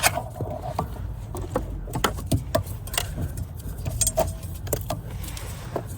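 Nylon zip tie being fastened around a wiring harness: scattered light clicks and rattles of plastic and wires being handled.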